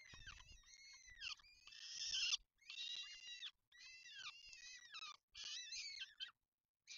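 Peregrine falcon chicks, about two weeks old, giving high-pitched begging calls in a string of short, repeated cries, many falling in pitch at the end, while the adult feeds them. A harsher, louder screech comes about two seconds in.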